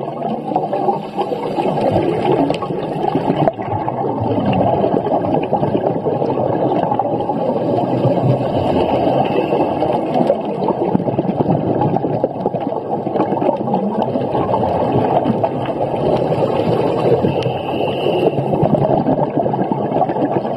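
Underwater ambience: a steady, dense rushing and gurgling of water, low in pitch, with a faint high whistle briefly near the middle and again near the end.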